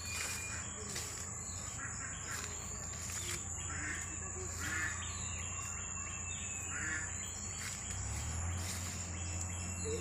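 Birds chirping and calling in short notes over a steady high-pitched insect drone, with a low hum underneath.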